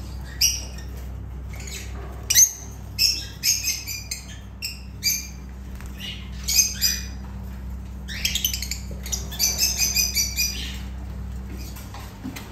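Lovebirds giving many short, shrill chirps and squawks, the calling growing busiest about eight seconds in, over a steady low hum.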